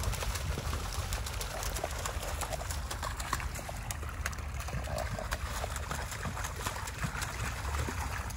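Water splashing and spattering as a hooked iguana thrashes at the surface, with many small sharp splashes over a steady low rumble.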